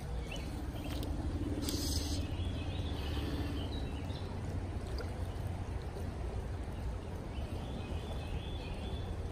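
Creek water running and rippling steadily, with a low rumble underneath and faint bird chirps high above it. A brief hiss comes about two seconds in.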